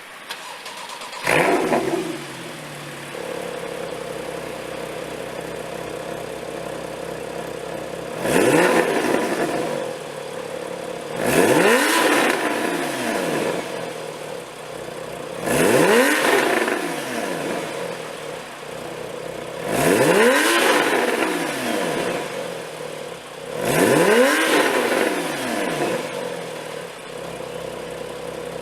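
Porsche 911 (991) Carrera's naturally aspirated flat-six, breathing through an IPE F1 Edition Valvetronic exhaust, starting about a second in and settling to a steady idle. It is then revved five times, each rev rising sharply in pitch and falling back to idle.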